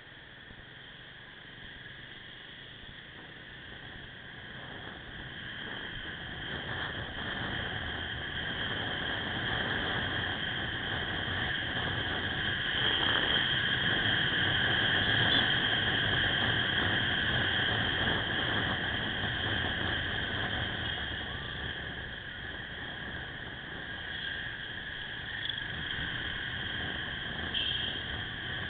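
Riding noise from a Suzuki Axelo motorcycle in city traffic: a rushing blend of wind and engine that swells toward the middle and then eases, under a constant high-pitched whine.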